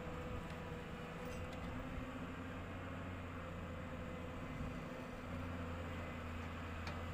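Heavy diesel engine of construction machinery running steadily with a low drone, growing a little stronger about five seconds in.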